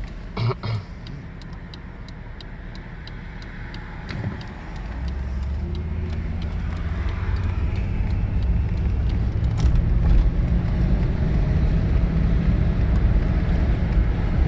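Cabin sound of a 1986 Mercedes-Benz 560SEL pulling away, its V8 engine and road noise building up and growing louder from about five seconds in. Before that there are two short thumps and a regular light ticking that stops about six seconds in.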